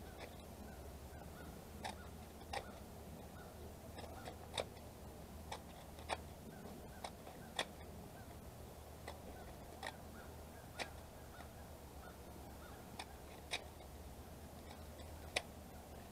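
Scissors snipping through thin cardboard: faint, sharp snips at an uneven pace of about one a second, over a low steady hum.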